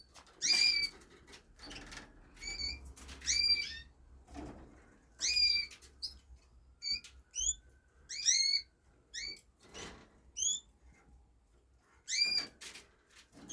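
Raza canaries giving short, rising call notes, about a dozen scattered through the stretch, with a few soft knocks and flutters from the cages.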